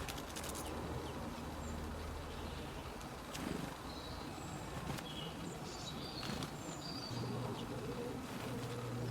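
Birdsong: scattered short, high chirps and calls from several small birds over a steady low background hum, with a low drawn-out call or tone coming in near the end.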